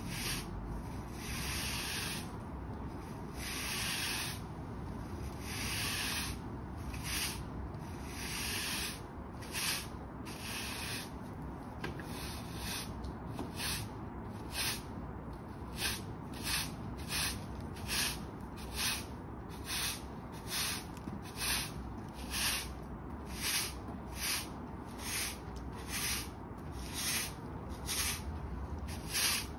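Hard-bristle broom sweeping dirt and grass clippings across concrete paving blocks. The first half has longer, spaced-out strokes. From about halfway, the strokes become short and quick, about three every two seconds.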